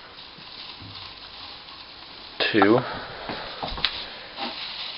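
Shredded-newspaper bedding rustling and crackling as a gloved hand digs through it in a plastic bin, with a few sharp clicks near the end.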